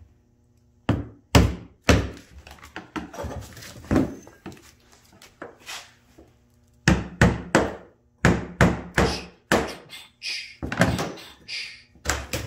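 Hammer striking a screwdriver held against the fuel pump's lock ring on the dropped fuel tank, knocking the ring around to free the pump: a run of sharp taps, then a pause, then a quicker run of taps.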